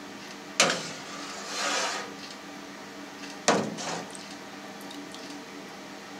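Milk being stirred up and down with a long paddle in a stainless steel cheese vat, mixing in the starter culture: a soft liquid swish between two sharp knocks of the paddle, about half a second in and near the middle, over a faint steady hum.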